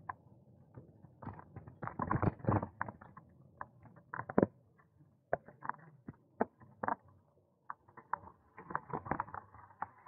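Bicycle rattling as it rolls over the road: many short, irregular clicks and light knocks in uneven clusters.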